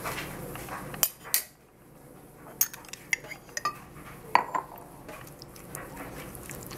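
A metal spoon clinking and scraping against a glass jar and a ceramic bowl as thick yogurt is scooped from the jar into the bowl: scattered sharp clinks and knocks, louder about a second in and around four seconds.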